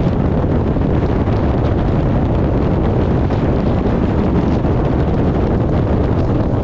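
Steady, loud low rumbling noise with no distinct tones or rhythm.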